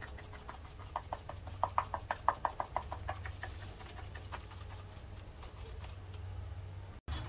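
Plastic parmesan cheese shaker shaken over a pan of sauce: a run of quick rhythmic rattles, about five a second, loudest between one and three seconds in, over a low steady hum.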